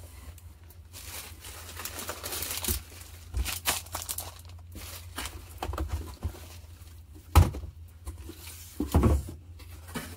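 Bubble wrap and plastic-wrapped packs crinkling and rustling as they are handled and pulled from a cardboard box. A sharp knock about seven seconds in is the loudest sound, and a few duller thumps follow near the end.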